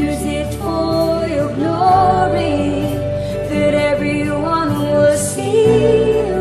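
Worship song played by a band, with a singer's voice holding and gliding between long notes over sustained chords and bass.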